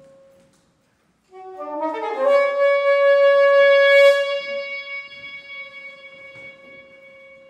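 Soprano saxophone plays a quick rising run of notes, then a long loud held note that fades into a soft sustained tone at the same pitch.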